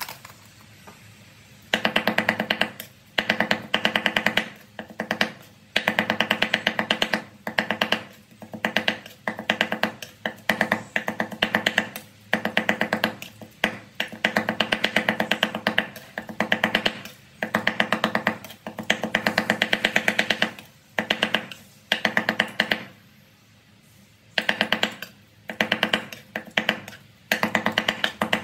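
Cleaver chopping rapidly on a wooden board, mincing raw fish into a paste: fast runs of knocks in bouts with short pauses between them, starting about two seconds in.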